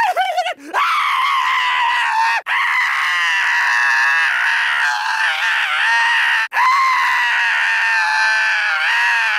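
High-pitched cartoon character's screaming: long, sustained, wavering wails, with short breaks about two and a half and six and a half seconds in.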